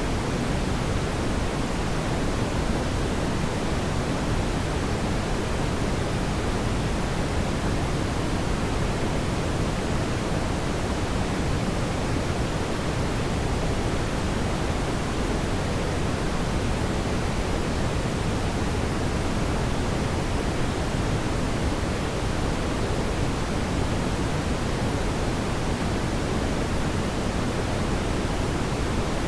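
Fireplace ambience: a steady, even rushing noise, heaviest in the low end, with no distinct crackles or pops.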